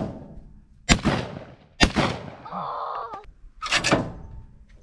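Break-action shotgun fired at thrown clay targets: sharp bangs, two about a second apart, then a close pair a couple of seconds later.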